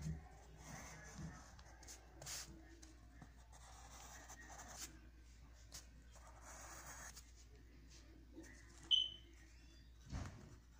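Pencil scratching on lined notebook paper in drawing strokes, coming and going. About nine seconds in there is a short, sharp high squeak, the loudest sound, and a soft thump follows near the end.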